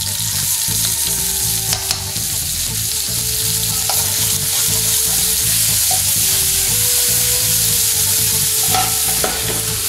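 Onion pieces sizzling in hot oil in a metal frying pan, stirred with a long metal chef's spoon that scrapes and clicks against the pan a few times. The pan is shaken on the burner near the end. A steady low rumble runs underneath.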